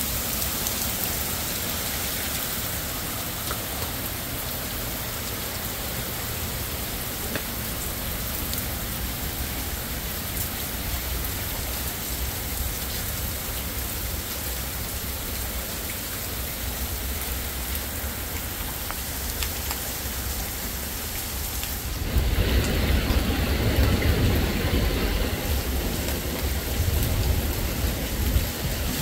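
Heavy rain falling steadily on gravel, grass and a wet street. About two-thirds of the way through, a louder, deeper rumbling rush joins it for several seconds.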